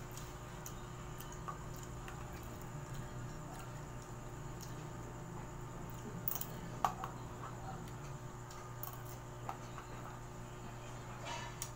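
A metal spoon clicking and scraping now and then against a plastic food container while someone eats, with one sharper click about seven seconds in. A steady low hum runs underneath.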